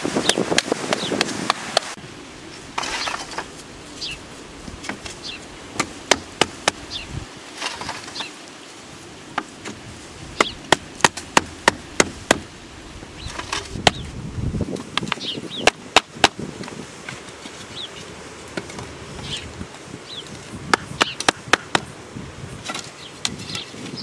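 Bamboo stakes being hammered in: runs of sharp wooden knocks, several a second, with pauses between the runs. Short high chirps sound in the background.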